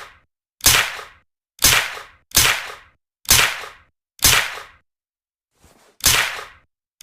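Suppressed Uzi submachine gun firing single shots, about one a second. Each is a sharp crack with a short fading tail, six in all, with a pause just before the last one.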